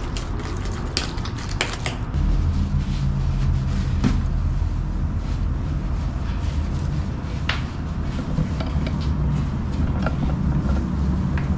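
A utensil clinking and scraping against a metal pot while mashing boiled plantains. About two seconds in, a steady low hum takes over, with a few separate knocks.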